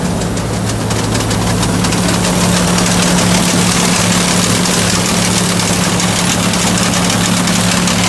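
Massey Ferguson 510 combine running steadily with an even engine drone.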